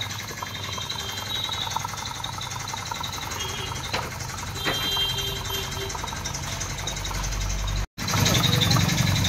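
A steady low machine hum with background noise, with two faint clicks around the middle; the sound drops out for an instant near the end and comes back louder.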